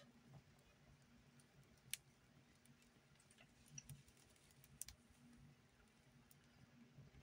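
Faint scattered crackles and ticks from a small fire of dry grass tinder burning on a metal tray, the sharpest about two seconds in, over a faint low steady hum.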